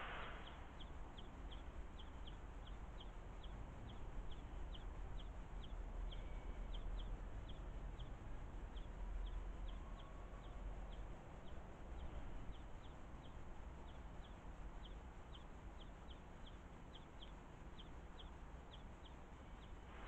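Juvenile greenfinch begging: short, high chirps repeated about twice a second, with a few brief pauses, over a faint low rumble.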